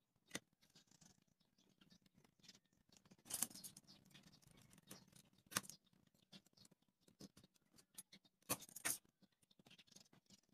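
Faint clicks, taps and scraping from small wooden craft pieces, popsicle sticks and a bamboo toothpick, being handled and cut with a utility knife on a wooden board. A few sharper clicks stand out about three and a half seconds in and near the end.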